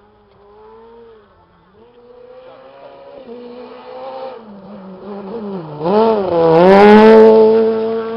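Off-road rally vehicle's engine approaching and revving, growing steadily louder. Its pitch dips and climbs again about six seconds in, then holds high and loud near the end.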